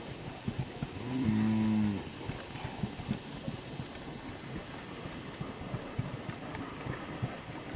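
A feeder calf moos once, a single call just under a second long, about a second in. Many short knocks and shuffles of hooves on the dirt run on around it as the herd walks.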